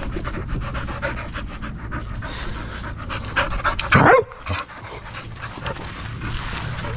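A dog panting fast and close, with a short falling cry about four seconds in, over a steady low hum.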